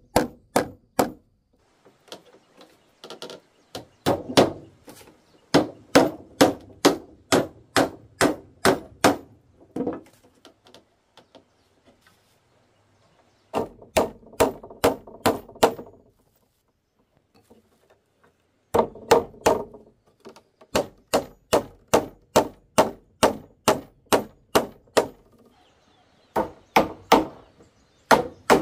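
A hand tool striking wood in runs of sharp, quick blows, about three a second. The runs are broken by pauses of a couple of seconds.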